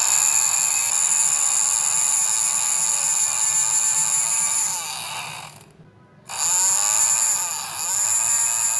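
Small brushed DC motor, powered from a single AA-size battery, spinning unloaded at high speed with a high-pitched whine. About five seconds in it winds down and cuts out for half a second, then spins back up.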